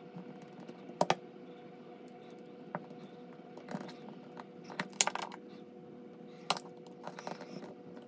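Plastic clicks and scrapes as a small screwdriver pries at the tabs holding a brake light switch's plastic housing together: a handful of sharp snaps, the loudest about one second and five seconds in, over a faint steady hum.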